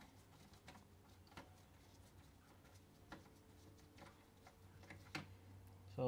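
Near silence with a few faint clicks from a T20 Torx screwdriver undoing the screws on the plastic casing over a Miele washing machine's motor; the clearest click comes about five seconds in.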